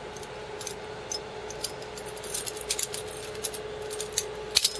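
Flick butterfly knife (balisong) being flipped in the hand: its one-piece metal handles and loose latch clink and clack in light, irregular clicks, with a quick flurry a little past halfway and a sharp clack near the end.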